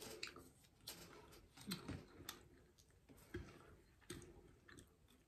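Faint, irregular crisp clicks and crackles of a papad, a thin crisp lentil wafer, being broken apart by hand, with a couple of soft thumps.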